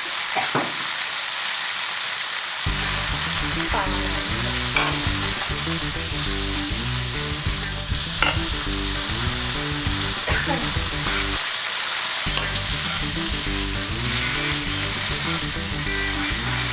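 Food sizzling in hot oil in a pan while being stir-fried for pad cha, with a steady hiss and occasional sharp clicks and scrapes of the spatula against the pan.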